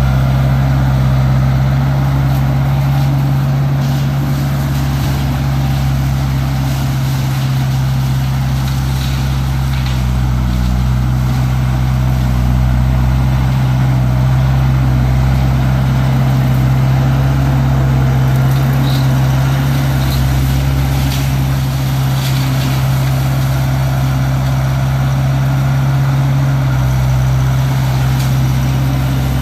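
Case 1845C skid steer's diesel engine running steadily while working a hydraulic brush cutter in brush.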